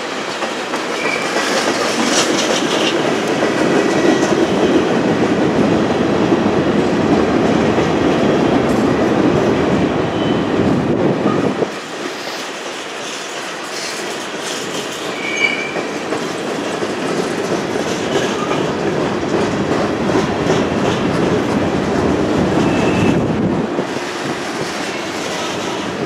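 A freight train's cars rolling past on a curve, steady wheel-on-rail rumble and clatter, with a few brief high wheel squeals. The noise drops for a moment about halfway through, then builds again.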